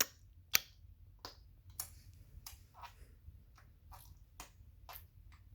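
A series of sharp tongue clicks, about two a second, the first two loud and the rest fainter and less even: a baby imitating the clicking sound.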